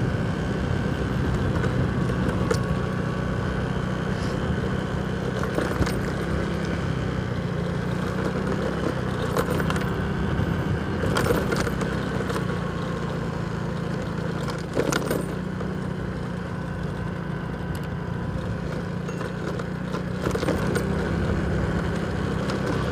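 Motorcycle engine running steadily at low riding speed, with a few brief rattles and knocks along the way.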